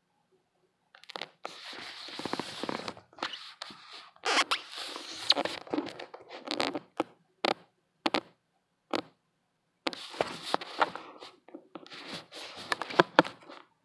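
Handling noise on the phone's microphone: rustling and scraping in irregular bursts with sharp clicks, starting about a second in, as the phone is moved around.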